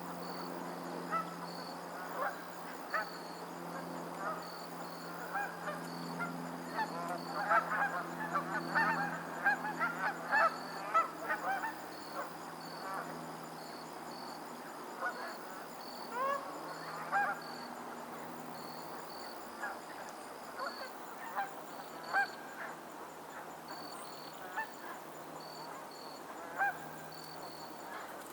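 A flock of geese honking. Many overlapping calls come thick a few seconds in, then thin out to scattered single honks.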